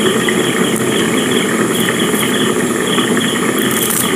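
A steady low mechanical hum, like a motor running, with a faint high pulsing about twice a second.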